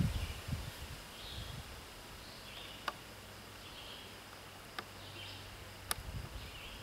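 Three small sharp clicks of a screwdriver working at a string trimmer's carburetor and fuel line, after some low handling noise that fades in the first second. Faint high chirping repeats in the background.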